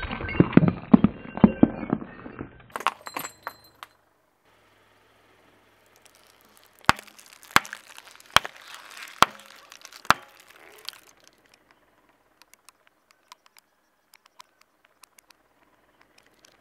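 A ceramic figurine crushed under a car tyre, shards crackling and clinking for about two and a half seconds. After a short silence, the tyre rolls over plastic tubes of a white drink, which burst with five sharp cracks about 0.8 s apart and a wet hiss of spilling liquid.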